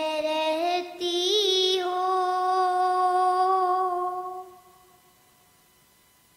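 A young girl singing solo, ending on a long held note that fades out about four and a half seconds in, followed by faint hiss.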